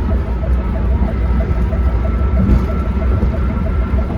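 Ambulance driving at speed, heard from inside the patient compartment: a heavy, steady engine and road rumble. Over it runs a thin steady tone and a fast, even pulsing of about five beats a second.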